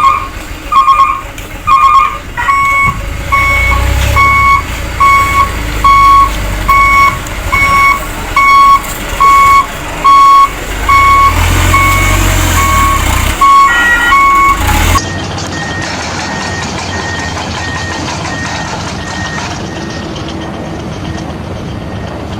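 Truck reversing beeper sounding evenly spaced beeps, about one and a half a second, over a low engine rumble that swells twice. About two-thirds of the way through the beeping cuts off abruptly and a fainter, higher-pitched beeping carries on.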